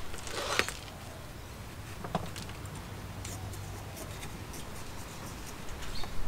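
Gritty bonsai soil mix pours briefly from a plastic jug into the pot, followed by a light knock. Faint scratching and ticking follow as a chopstick works the soil in around the roots.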